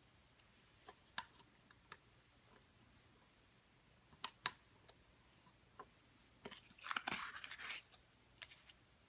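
Faint small clicks and a short burst of scraping as CR2016 coin-cell batteries are handled and pressed into the plastic battery holder of a Ford key fob remote. The scraping comes a little over halfway through.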